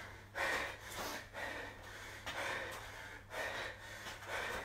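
A man breathing hard from exertion during a lunge set: a string of quick, forceful exhalations, roughly one a second.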